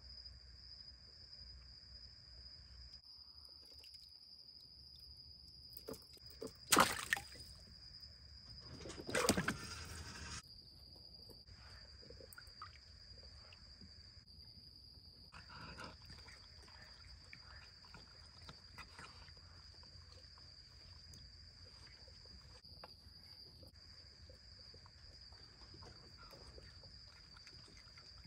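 A raccoon splashing and sloshing in the shallow water of a plastic kiddie pool: a sharp splash about seven seconds in and a longer slosh about nine seconds in, with smaller rustles and drips between. A steady high insect trill runs underneath.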